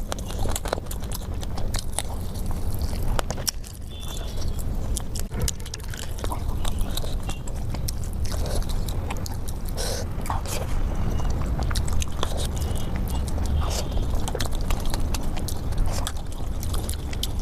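Close-miked chewing and biting of food, with many small wet clicks and smacks over a steady low rumble.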